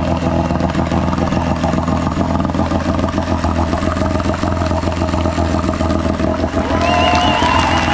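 Small 6 hp twin-cylinder outboard motor running steadily in a test tub of water, its propeller churning the water. It runs smoothly on its own with a new fuel pump and tightened fuel-line clamps.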